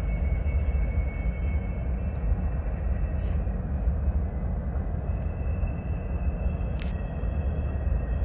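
Steady low outdoor rumble, wind buffeting the microphone, over which freight car wheels in a hump yard give a faint, thin, high-pitched squeal that fades and returns about halfway through.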